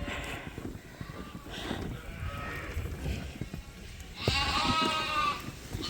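Lambs bleating: a few faint calls, then one long, loud bleat about four seconds in.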